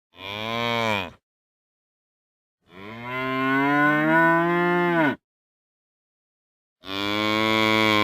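Cow mooing three times with silent gaps between: a short moo that drops in pitch, a long moo of about two and a half seconds, then a third moo starting near the end.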